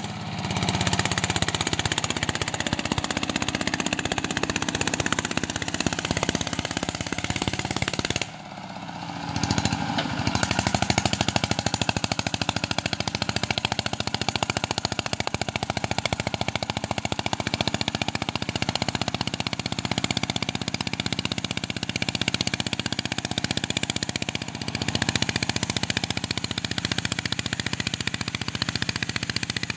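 Two-wheel walking tractor's single-cylinder diesel engine running under load while ploughing, with a loud, rapid chattering exhaust beat. The sound drops out briefly about eight seconds in, then resumes.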